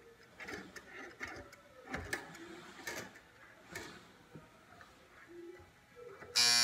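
Scattered light clicks and knocks of the clock radio's knobs being worked, then about six seconds in the alarm buzzer of the 1952 Firestone clock radio cuts in suddenly with a loud, steady buzz.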